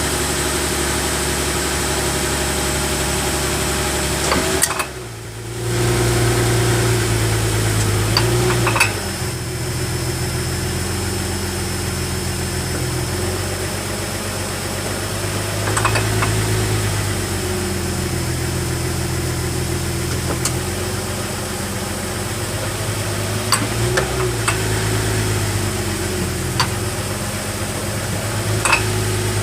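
2006 Infiniti M35's V6 engine idling while the transmission is shifted between park, reverse, neutral and drive, the idle note changing with each gear selection. Sharp clunks come at several of the shifts, a loud clunking that the owner suspects comes from the rear differential.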